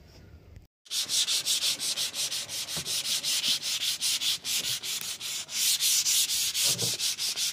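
Sandpaper on a hand-held sanding pad rubbed back and forth over a putty patch on a speedboat's hull, in quick, even hissing strokes of about four or five a second, starting about a second in. This is the smoothing of a repair patch before primer and paint.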